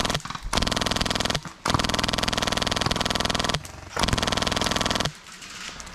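Airsoft M60 electric support gun firing on full auto, a fast, even rattle in four bursts, the longest about two seconds, stopping about five seconds in.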